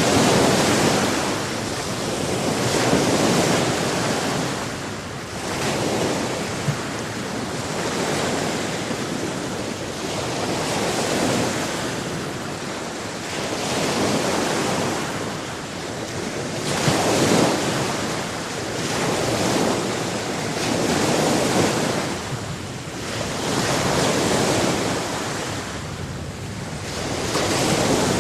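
Sea surf washing onto a shore, the waves surging and easing every few seconds.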